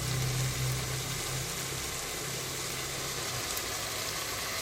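Steady hiss of food cooking in a pot on the stove, with a low hum under it that stops about three and a half seconds in.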